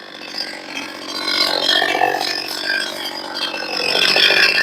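Freshly tuned two-stroke chainsaw idling between cuts with a steady rattly run, its revving dropping away just before.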